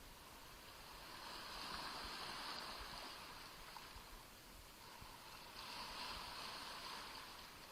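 Small Black Sea waves splashing at the shoreline, two gentle washes swelling and fading about four seconds apart.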